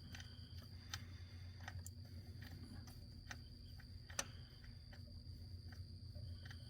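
Faint, sparse clicks, roughly one a second, over a low steady hum and a thin steady high-pitched tone.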